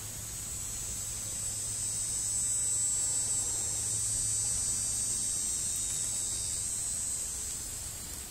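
Insect buzzing, high-pitched and steady, swelling in over the first couple of seconds and fading away near the end.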